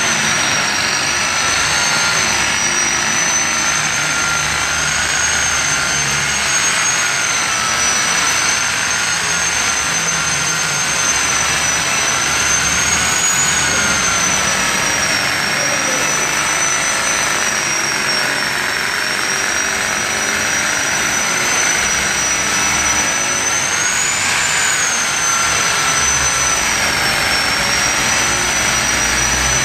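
Electric machine polisher with a red pad running steadily on car paint during paint correction. Its high motor whine wavers slightly in pitch as the load on the pad changes.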